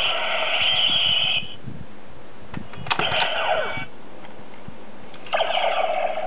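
DX Kamen Rider Decade toy transformation belt playing electronic sound effects through its small speaker: a held synth tone that stops about a second and a half in, a short burst with falling sweeps about three seconds in, and another tone starting a little after five seconds.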